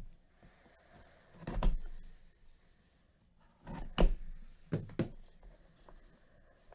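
Handling of a cardboard trading-card hobby box close to the microphone: a dull thump, a louder one a few seconds later, then two quick knocks, with gloved hands brushing nearby.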